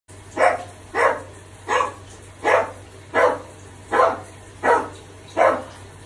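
Blue-and-gold macaw imitating a dog's bark: eight single barks, evenly spaced about three-quarters of a second apart.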